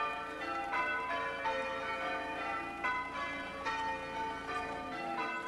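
Church bells ringing changes: a steady run of bells struck one after another, about two strokes a second, each note ringing on into the next.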